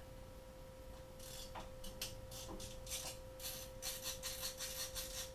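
Hand tool loosening the screws and clamps on a Yamaha TTR125's carburetor: a run of short metallic clicks and scrapes, sparse at first and then about three a second.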